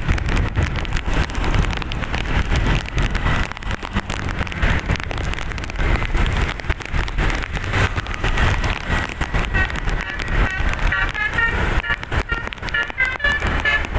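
Steady low rumble of road traffic. From about ten seconds in, a bus's musical 'telolet basuri' air horn starts a quick melody of short high notes.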